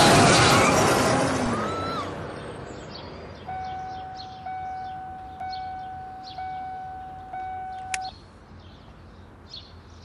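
A loud noise dying away, then a steady high tone that restarts about once a second for some four seconds and is cut off by a sharp click.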